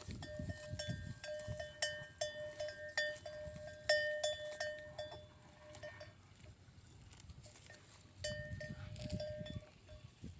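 A cowbell on a grazing cow clanks in a steady jangle, about three strikes a second. It stops for about two seconds past the middle, then starts again.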